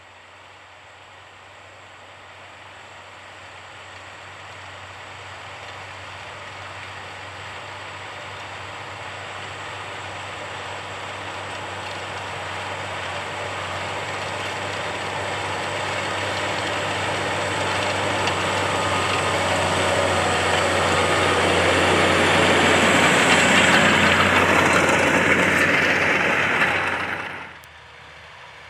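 John Deere 7R 310 tractor's six-cylinder diesel engine working under load as it pulls a tillage implement through the soil. It grows steadily louder as the tractor approaches, then drops off abruptly near the end.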